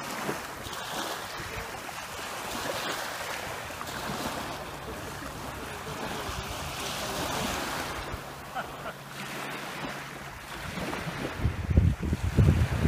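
Small sea waves washing and lapping in a steady hiss of moving water. Near the end, gusts of wind buffet the microphone.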